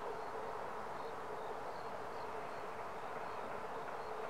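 Steady outdoor background hum with faint, scattered high chirps over it; no distinct event stands out.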